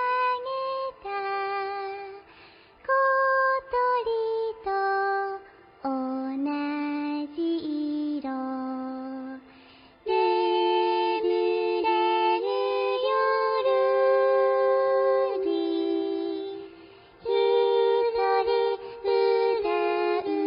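A woman's voice sings a slow Japanese song. She holds long, steady notes and pauses briefly between phrases.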